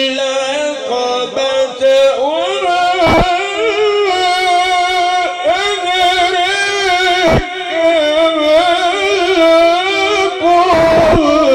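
A man reciting the Qur'an in a melodic, chanted style through a microphone and loudspeaker, drawing out long ornamented notes that waver and turn, with a couple of short breaks.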